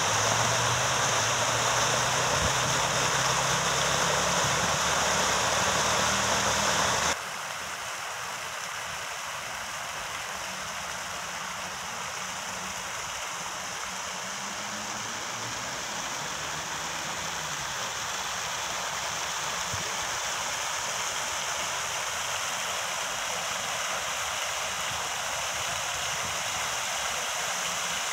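Fountain water splashing steadily as it spills over the rim of the basin into the pool below. About seven seconds in the sound drops suddenly to a softer, steady splashing of the fountain's jets.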